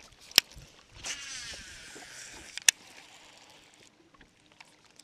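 Baitcasting reel cast: a sharp click, then the spool whirring as line pays out for about a second and a half, then another sharp click.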